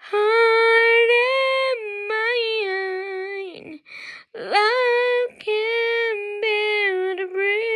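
A woman singing unaccompanied, holding long, drawn-out notes that waver slightly in pitch, with a quick breath between phrases about four seconds in.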